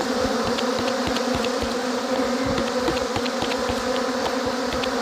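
Steady buzzing hum of a cloud of BeeWeaver honey bees flying around an opened hive.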